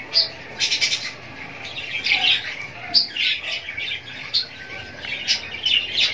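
Cage birds chirping and squawking: a busy run of short, sharp, high calls coming irregularly, several a second at times.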